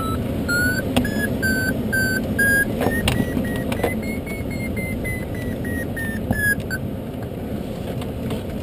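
Glider's audio variometer beeping about twice a second. Its pitch rises over the first four seconds and then falls, tracking a climb that strengthens and then weakens, and the beeps stop about seven seconds in. A steady rush of airflow runs beneath it.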